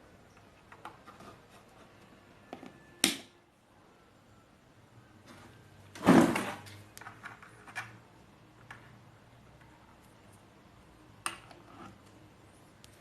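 Scattered clicks and knocks from handling the home theatre unit and its plugs, with two louder knocks about three and six seconds in, the second the loudest.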